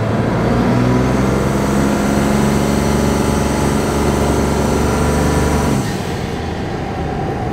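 Dodge Ram's Cummins turbo-diesel accelerating hard, heard from inside the cab. The engine note climbs steadily for about five seconds, then drops away suddenly as the throttle is lifted.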